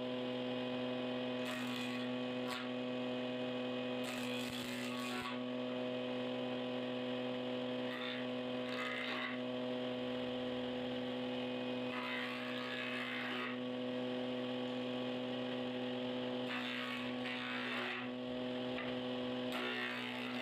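Combination jointer and table-saw woodworking machine running with a steady electric hum. Short bursts of noise come every few seconds as a wooden board is pushed across the table.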